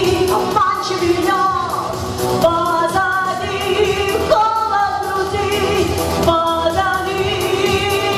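A pop song performed at a concert: a singer holding long, sustained notes over backing music with a steady beat.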